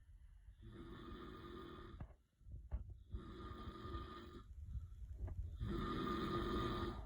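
A man snoring in deep sleep, three long rasping breaths about two and a half seconds apart, with the last one the loudest. A few faint clicks fall in the pauses between breaths.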